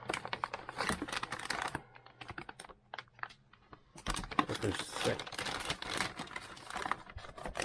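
Packaging being handled as a motherboard is taken out: dense crackling and rustling, thinning to scattered clicks from about two to four seconds in, then dense again.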